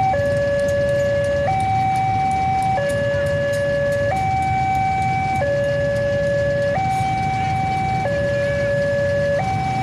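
Railway level-crossing warning siren sounding a slow two-tone alarm, switching between a lower and a higher tone about every second and a quarter. A low rumble of road traffic runs underneath.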